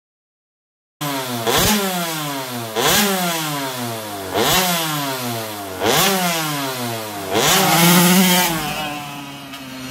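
KTM 85 two-stroke engine on a quad being revved hard about five times: each rev climbs sharply and then slowly dies away. The last rev, near the end, is held longest.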